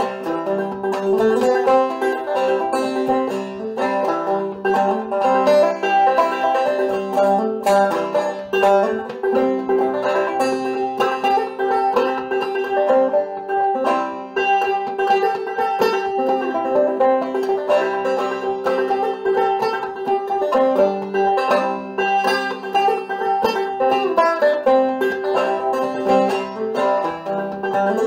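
Five-string banjo played clawhammer style: a steady, rhythmic stream of plucked melody notes and brushed strums, with a drone string ringing throughout.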